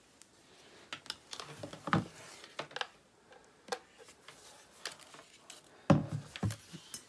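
Scattered clicks and knocks of a plastic mains plug and cable being handled and plugged in to power the alarm clock, the loudest knock about six seconds in.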